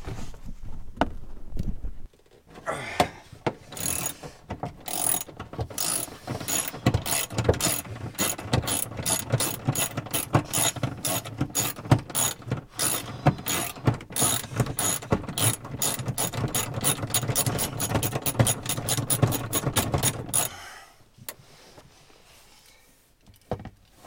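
Socket ratchet on a long extension clicking in quick back-and-forth strokes as it backs out a seat belt anchor bolt. The run of clicks starts a couple of seconds in, speeds up as it goes, and stops a few seconds before the end.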